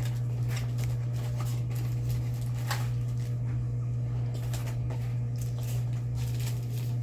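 Plastic sandwich bag and small diamond-painting drills being handled, giving scattered light rustles and clicks over a steady low hum.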